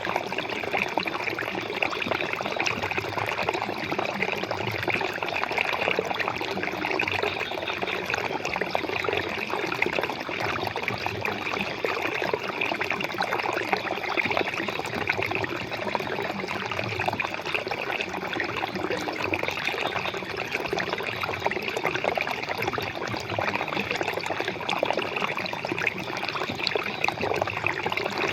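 Water flowing and trickling in a steady, continuous stream.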